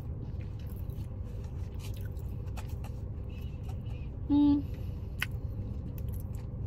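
Steady low rumble of a car interior, with faint mouth clicks of chewing and a short closed-mouth 'mm' hum about four seconds in.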